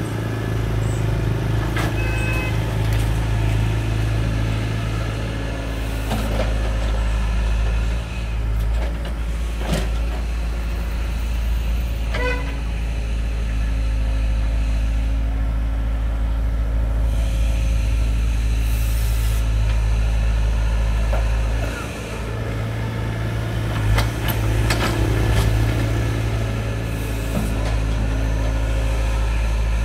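Volvo EC55C compact excavator working: its diesel engine runs steadily with a deep drone, dipping briefly once, while the bucket digs and dumps sand with a few scattered knocks and clanks.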